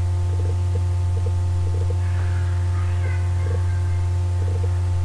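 Steady low electrical hum, even in level, with fainter steady overtones above it.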